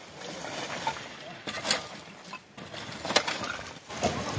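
A long blade chopping firewood into kindling: a few sharp chops about a second and a half apart, with a steady outdoor hiss between them.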